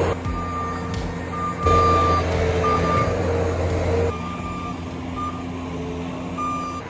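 Skid steer's engine running with its back-up alarm beeping as it reverses; the engine is louder for a couple of seconds about two seconds in.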